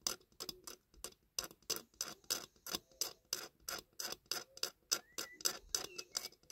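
Small hand tool scraping paint from the edge of a diecast model truck's cattle-box body in quick, uneven strokes, about four a second, to clear excess paint so the parts fit together.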